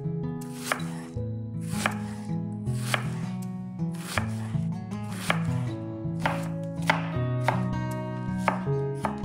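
A knife cutting vegetables on a cutting board in single slow cuts, about one a second, over soft background music.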